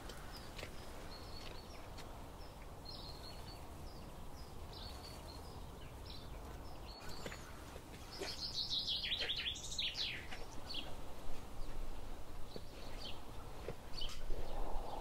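Small songbirds chirping in a conifer wood: short high chirps here and there, with a louder run of notes falling in pitch about eight to ten seconds in, over a low steady outdoor rumble.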